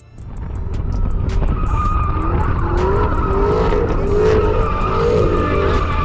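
A car spinning its tyres: loud engine rumble that builds over the first second and then holds, with a wavering tyre squeal over it.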